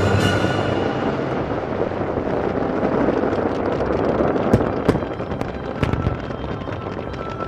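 Fireworks going off: a dense crackling, with several sharp bangs about four and a half, five and six seconds in. Orchestral music fades out at the start.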